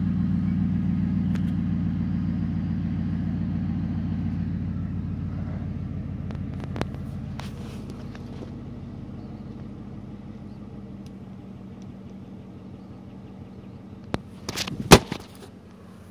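High-mileage vehicle engine, at about 220,000 miles, running steadily, heard from inside the cab as a low hum that slowly grows quieter. A few sharp knocks about fourteen to fifteen seconds in.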